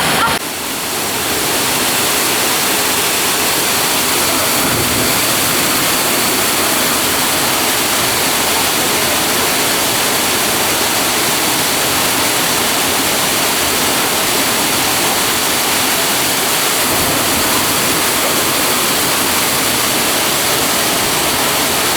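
Waterfall pouring, a steady loud rush of falling water.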